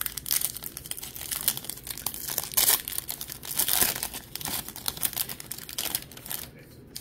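Foil wrapper of a Topps baseball card pack being torn open and peeled apart by hand, crinkling in a dense run of crackles, with the loudest tearing a little before halfway and dying away shortly before the end.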